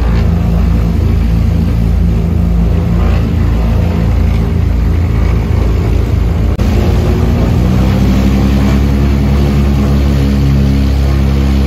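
Twin piston engines and propellers of a Britten-Norman Islander heard inside the cabin, running at taxi power with a pulsing beat between the two engines. About seven seconds in they are throttled up to takeoff power, the pitch rising and then holding steady as the takeoff roll begins.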